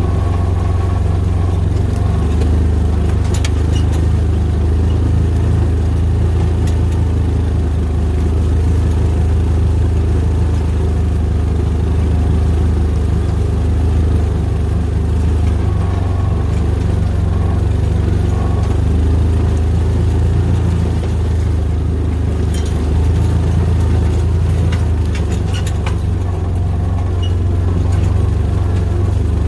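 Yamaha Rhino 700 side-by-side's single-cylinder engine running steadily as it drives along at an easy pace, with its low drone rising and falling slightly and a few light rattles.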